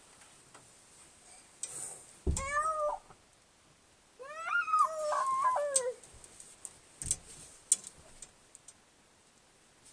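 Cat meowing twice: a short meow about two seconds in, then a longer, wavering meow that rises and falls. A dull knock follows about seven seconds in.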